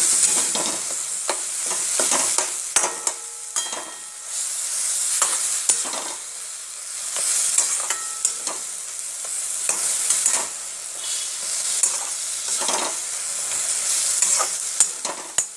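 Mashed brinjal frying in oil in a metal kadai, sizzling in waves as it is stirred, with a slotted steel spatula scraping and clicking against the pan many times.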